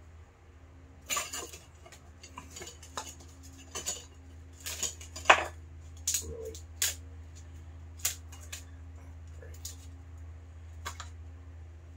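Hard objects being handled on a work table, giving a run of sharp clinks and knocks, thickest in the first half with the loudest about five seconds in, then a few scattered ones, over a steady low hum.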